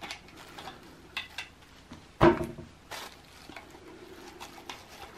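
Small metallic clicks and clinks of hand tools on a transistor's fixing nut and bolt against a metal panel as the fixing is undone, with a louder knock a little over two seconds in.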